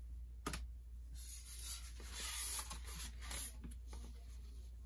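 Long wig hair rustling softly as the wig is handled and settled onto a foam mannequin head, with a few light knocks and clicks.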